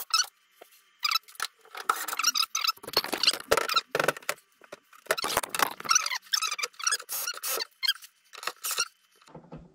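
Short, irregular squeaks and scraping rubs of the integrated freezer's door and fixings being handled and pushed into place.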